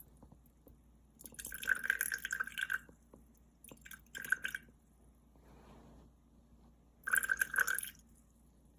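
Three short bursts of wet scraping and dripping as sourdough starter ingredients are added to a jar being weighed out by the gram.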